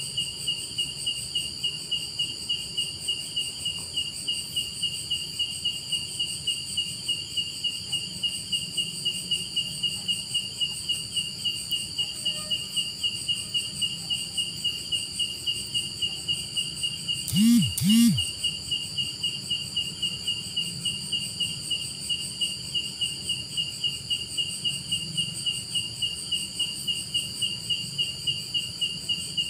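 An insect chirping steadily in a fast, even pulse of high chirps, cricket-like. About halfway through, two short, loud, low sounds come in quick succession over it.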